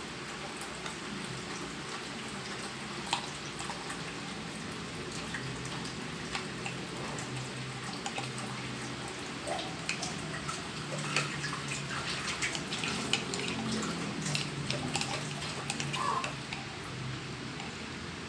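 A metal spoon scraping and tapping against a ceramic mug, with soft wet drips, as thick whipped coffee foam is spooned out onto milk in a glass. The light clicks come now and then at first and grow more frequent in the second half, over a steady low hum.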